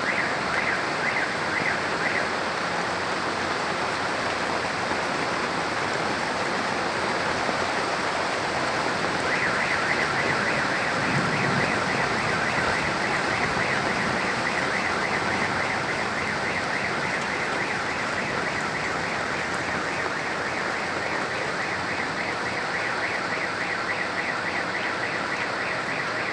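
Heavy rain falling steadily. A high, rapidly pulsing tone sounds for the first couple of seconds, then starts again about a third of the way in and keeps going.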